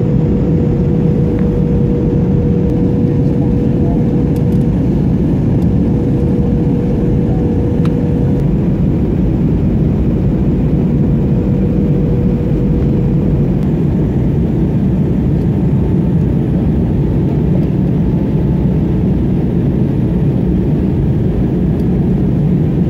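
Steady engine and airflow noise inside a passenger airliner's cabin on its landing approach, with a faint steady hum that fades out about halfway through.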